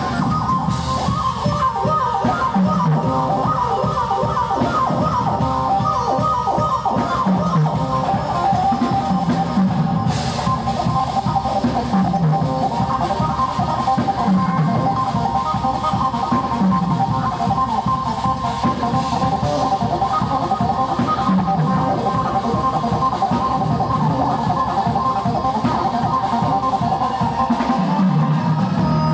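A jazz-fusion band playing live: drum kit, bass and keyboards, with a sustained lead line. A low bass phrase rising in pitch comes back every two or so seconds.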